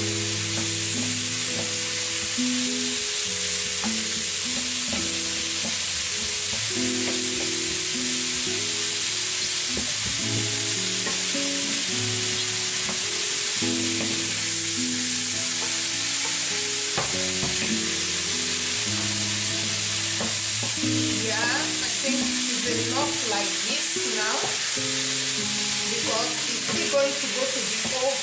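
Sliced mushrooms and onions sizzling steadily in a hot frying pan, stirred with a wooden spatula, with short scrapes of the spatula more frequent in the later part. Soft background music with held notes plays underneath.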